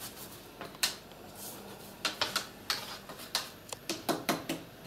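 A stiff brush scrubbing grated carrot out of the holes of a metal hand grater, in quick scratchy strokes. The strokes are sparse at first and come several a second from about halfway through.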